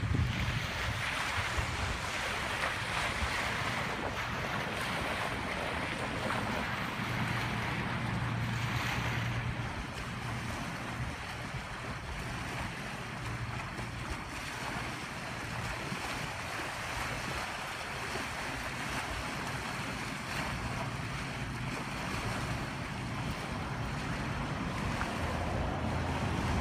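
Steady wind blowing on the microphone, with waves washing against a rocky lake shore.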